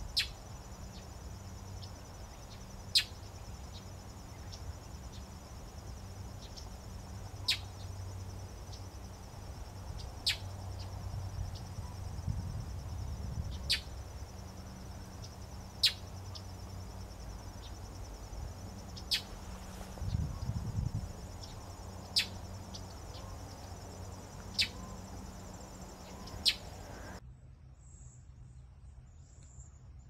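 Northern mockingbird giving short, sharp call notes, one every two to four seconds, over a steady high insect trill. The insect trill cuts off near the end.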